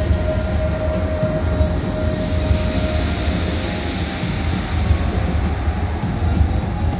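Electronic drumstep track in an atmospheric sound-design passage: a deep pulsing rumble throughout, with a held tone that fades out about three seconds in and a hiss that comes in about a second and a half in.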